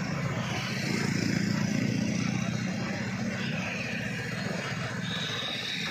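Road traffic: a motor vehicle's engine running steadily, swelling over the first couple of seconds and then easing off, with a brief high tone about five seconds in.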